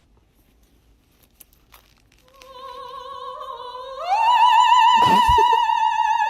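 Operatic singing voice, a single held vowel with wide vibrato, entering about two seconds in and stepping up in pitch to a loud, long high note. A short knock sounds under the high note.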